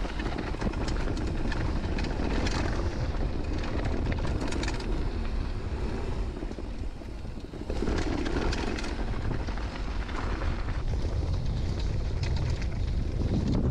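Wind rumbling on the helmet- or chest-mounted camera's microphone while a downhill mountain bike rolls fast over a dry dirt and gravel trail, tyres crunching and the bike clattering over bumps. The noise eases for a moment about six seconds in, then picks up again.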